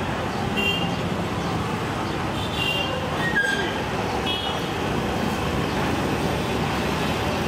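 Steady roadside traffic noise with a crowd in the background, broken by a few brief high-pitched tones.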